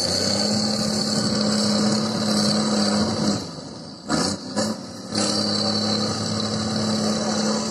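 Trial truck's diesel engine running hard at steady revs as it climbs out of a steep pit. It eases off briefly a little past the middle, with a couple of short sharp noises, then pulls steadily again.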